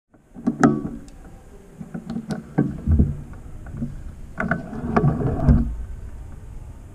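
Irregular knocks, clicks and rattles of a compound bow being handled as it is readied to shoot, heard through a camera mounted on the bow itself.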